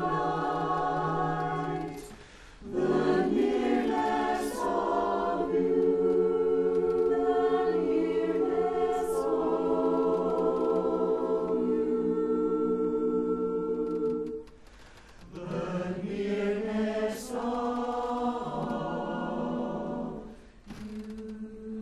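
Mixed barbershop chorus, men's and women's voices, singing a cappella in close harmony. A long chord is held from about five seconds in to about fourteen, with short breaks between phrases and a few sharp 's' sounds.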